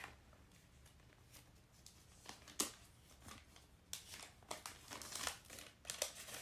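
Faint crinkling and scattered clicks of colored contact lens packaging being handled, more frequent in the second half.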